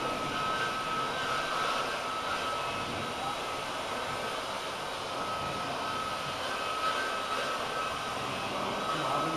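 Steady rushing machine noise with a constant high whine running through it.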